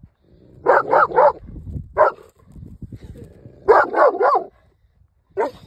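St. Bernard barking in short, loud bursts: three quick barks, a single one, a run of four, then one more near the end.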